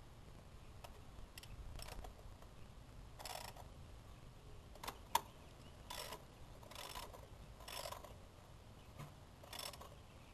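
Hand ratchet on an extension bar turning a 10 mm bolt on the engine cover, its pawl clicking in about five short runs, with a few single sharp clicks between. The sharpest click comes about five seconds in.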